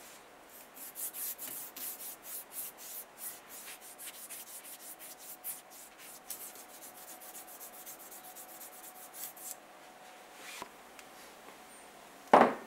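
An abrasive strip drawn back and forth around the copper commutator of an electric drill armature, polishing it: quick rasping strokes, about three a second, stopping at about nine and a half seconds. Near the end, one loud knock as the armature is set down on the wooden bench.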